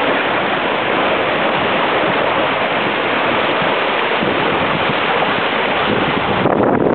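Steady rush of water and spray streaming along the hull of a Mini 6.50 carbon prototype sailboat under way at speed. Near the end it turns gustier, with wind buffeting the microphone.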